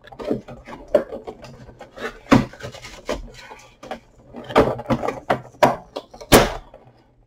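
Cardboard box and clear plastic packaging of an action figure being pried and pulled apart by hand: irregular crinkling, scraping and clicking, with a sharp snap about six seconds in.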